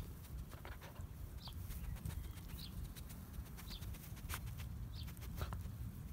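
A dog quietly chewing and tugging at a fabric-strip treat ball, with faint scattered clicks from its teeth and mouth over a low rumble.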